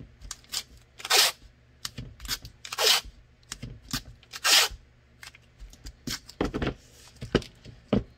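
Blue painter's tape being pulled off the roll in three loud tearing pulls about a second and a half apart, then pressed down by hand. Small taps and rubs follow as the taped pistol and light are handled.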